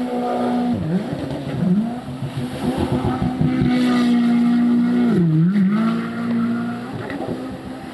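Yamaha FZR WaveRunner's supercharged four-stroke engine running hard through a Riva Racing full thru-hull exhaust while the craft circles at speed. The revs drop briefly about a second in and again around five and a half seconds in, then climb back to a steady high pitch.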